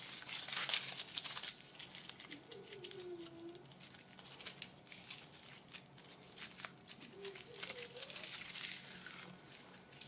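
Foil wrapper of a Kinder Surprise chocolate egg being peeled off by hand, crinkling and crackling. It is densest in the first second and a half, with scattered crackles after that and another burst of crinkling near the end.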